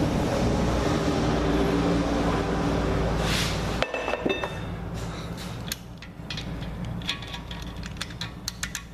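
A steady low rumble for about four seconds that cuts off suddenly, followed by scattered metal clicks and clinks as a cam bearing installer tool is taken apart inside a big-block Chevy 396 engine block.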